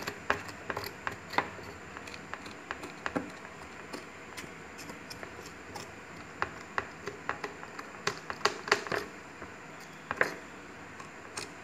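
A knife scraping hair off a scalded goat leg over a plastic tray: a run of short, irregular scrapes and clicks, with a denser cluster about two-thirds of the way through. The hair has been loosened in hot water so it scrapes off easily.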